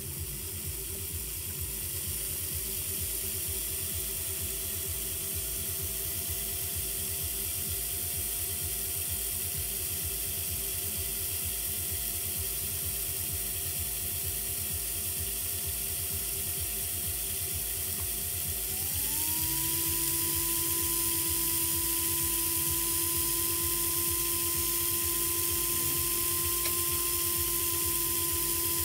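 Vintage Märklin 3005 H0 model steam locomotive's electric motor and gear train whining as it runs on a roller test stand, with a low, even pulsing underneath. The pitch creeps up about two seconds in, then steps up to a higher, louder whine about nineteen seconds in as the locomotive speeds up.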